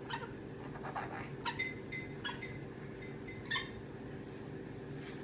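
Pet parrot giving a handful of short squeaky chirps, the loudest about three and a half seconds in.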